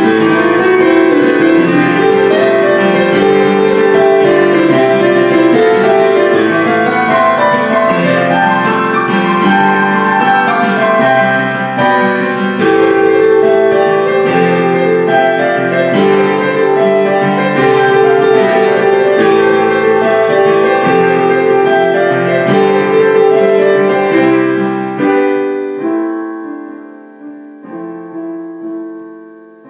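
Background piano music, a flowing run of notes that thins out about 25 seconds in to a few quieter, slowly fading notes.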